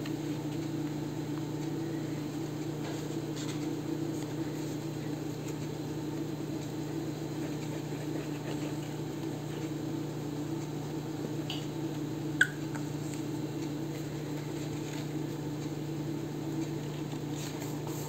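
Steady low electrical hum of room background, with faint taps and rustles of paper being handled and pressed down, and one sharp click about twelve seconds in.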